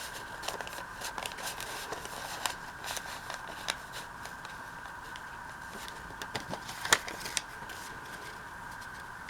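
Loose paper pages being handled and tucked into a journal: light rustling with scattered small clicks and taps, the sharpest about seven seconds in, over a faint steady high-pitched hum.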